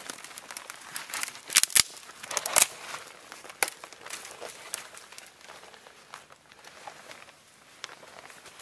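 Thin dry twigs being snapped and broken by hand for kindling. A cluster of sharp cracks comes between one and a half and nearly three seconds in, with a few single snaps after it and light rustling of the twigs between them.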